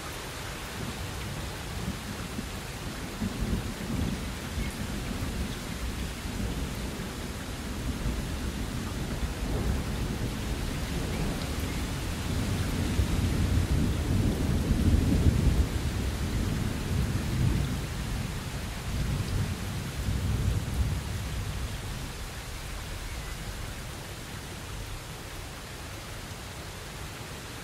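Steady rain with a long roll of thunder that builds a few seconds in, grows loudest around the middle and fades away over the last several seconds.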